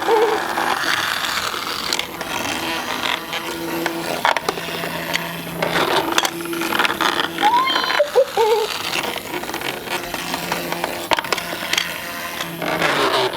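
Battery-powered Zuru toy hamsters running through a plastic playset: a small motor hum that comes and goes, with many light plastic clicks and rattles.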